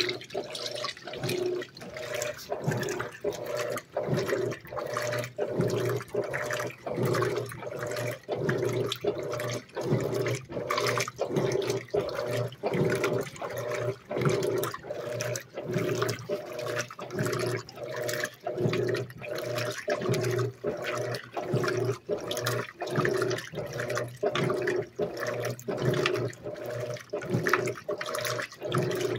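Electrolux LAC 12 top-loading washing machine agitating a load of clothes in water, on its normal, wide-stroke agitation. The agitator swishes the wash back and forth in quick, regular strokes, with a brief break at each reversal about every three-quarters of a second, over a steady motor hum.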